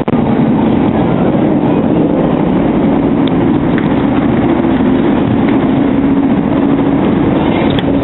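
Steady, loud running noise of a train heard from inside a car-carrying rail wagon, a continuous rumble with a low hum over it.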